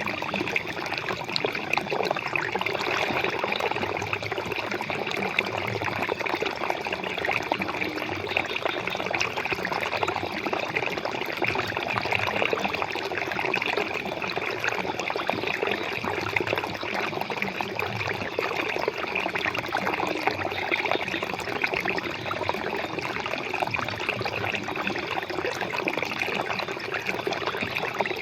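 Flowing water trickling and splashing steadily, like a small stream or brook running over stones.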